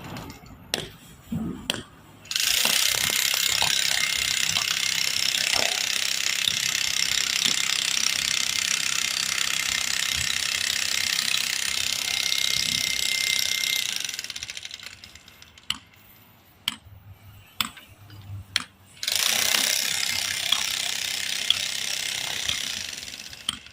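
Power drill running in two long bursts, one of about eleven seconds and a shorter one of about four seconds near the end, with scattered clicks and knocks between them.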